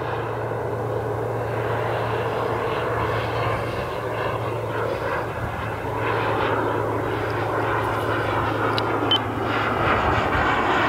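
Turbine engine of a Hispano Aviation Bull radio-controlled jet in flight overhead: a steady jet rush that slowly grows louder, with a low steady hum under it that fades out near the end.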